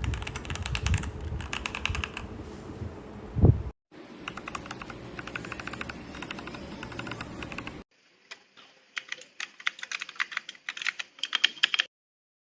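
Typing on a Royal Kludge RK61 mechanical keyboard: rapid runs of keystroke clicks in three separate takes, with a heavier low thump about three and a half seconds in.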